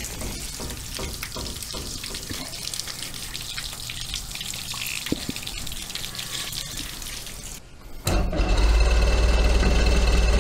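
A soft liquid hiss and splash as two-stroke fuel is squirted from a squeeze bottle into the carburetors. About eight seconds in, the Force 120 hp four-cylinder two-stroke outboard is turned over on the key and suddenly runs, loud and steady, on that squirt of fuel.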